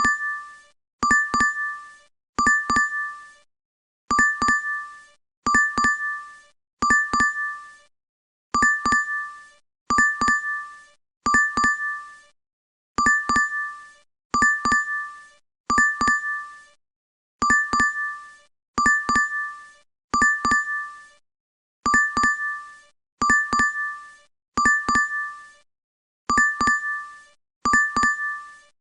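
DoorDash app notification chime: a bright double ding of two quick strikes that rings out briefly, repeated over and over about every one and a half seconds.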